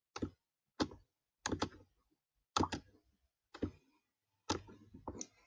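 Computer mouse clicking: about eight short, sharp clicks, some in quick pairs, as blocks are picked up and dropped.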